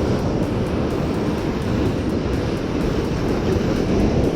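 Steady low rushing noise of wind and surf on an open beach, with the wind rumbling on the microphone.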